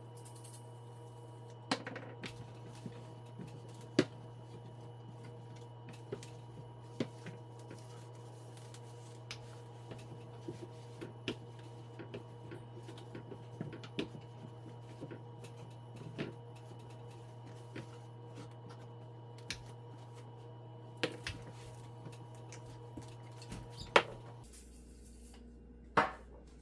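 Faint scattered clicks and knocks from wiping down a wooden china hutch with a polishing cloth, over a steady low hum that cuts off near the end.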